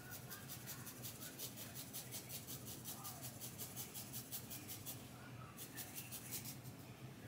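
Faint, quick scissor snips cutting layers into a wig's hair, an even run of about five snips a second with a brief pause around five seconds in.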